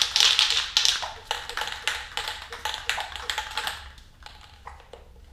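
Mixing ball rattling rapidly inside an aerosol can of acrylic primer filler as the can is shaken hard to mix the primer before spraying. The rattling stops about four seconds in, leaving a few lighter clicks.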